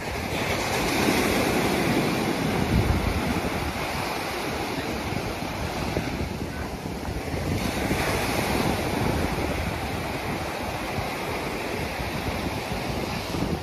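Ocean surf breaking and washing up a sandy beach, a continuous rush that swells louder about a second in and again past the middle as waves come in.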